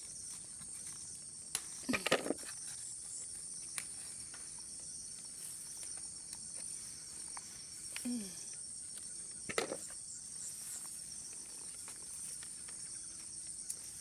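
Steady, high-pitched chorus of insects such as crickets, with a few short sharp noises breaking in, the loudest about two seconds in and two more near the middle.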